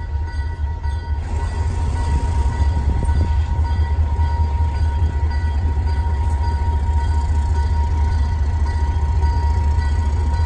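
Diesel-electric locomotive approaching and throttling up, its engine running with a deep, steady rumble that swells about a second in as it comes under load.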